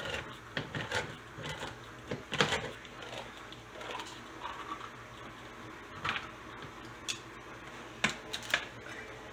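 Handheld crank can opener being turned around a can of diced tomatoes: a run of irregular clicks and knocks as it works round the rim, with a louder knock about two and a half seconds in.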